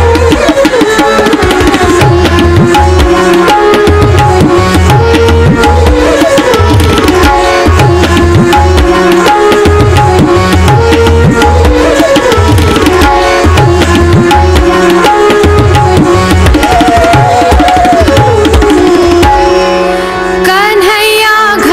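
Tabla-led Hindustani music for a Kathak dance: the tabla keeps a steady rhythm under a melody line. Near the end the music dips briefly and a new, higher passage begins.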